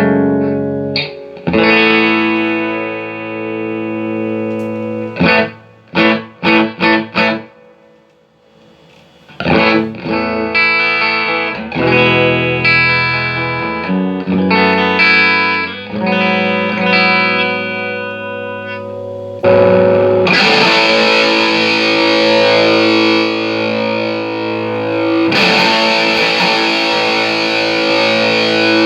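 Electric guitar played through a Marshall JCM2000 DSL201 valve amp, running again after a repair. Chords ring out, with a few short stabs and a brief pause. About twenty seconds in it switches to a much denser, heavily distorted tone.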